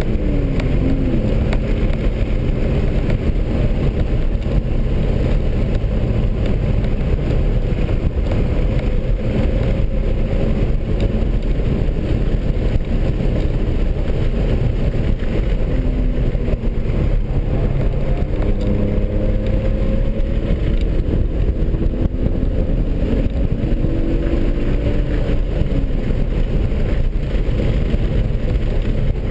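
2003 BMW 330i ZHP's 3.0-litre straight-six engine at full track-driving load, heard from inside the cabin. Its pitch rises and falls several times as it accelerates and comes off the throttle, over a steady heavy rumble of road and wind.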